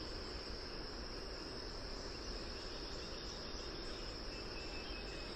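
Steady high-pitched insect chirring over a low background hiss.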